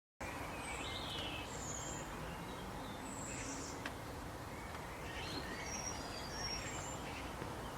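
Scattered short, high chirps at several pitches over a steady outdoor background hiss, with one sharp click about four seconds in.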